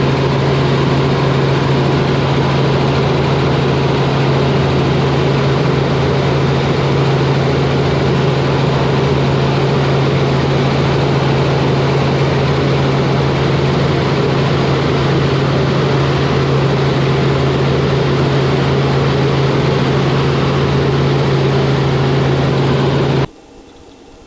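Helicopter cabin noise: a steady, loud drone of engine and rotor with a strong low hum. It starts abruptly and cuts off suddenly near the end.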